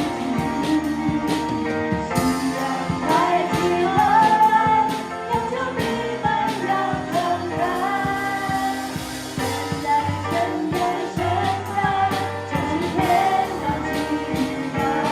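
Live Christian worship music: voices singing a melody over a band, with drums keeping a steady beat.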